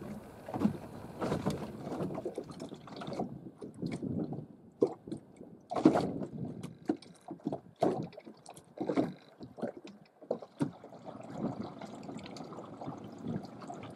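Water lapping against a boat's hull, with irregular small knocks and clicks of handling throughout.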